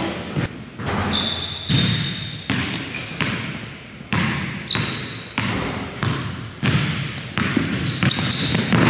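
Basketball being dribbled on a hardwood gym floor, a bounce roughly every second, each thud echoing in the large hall, with a few short high squeaks of sneakers on the court.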